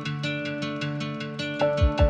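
Background music: quick, evenly spaced plucked guitar-like notes, with deep bass thumps coming in near the end.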